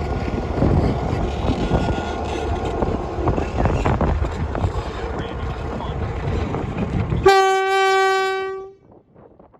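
Santa Fe train passing with a steady, heavy rail noise. Then, about seven seconds in, the locomotive's horn sounds one steady blast about a second and a half long that cuts off and fades away.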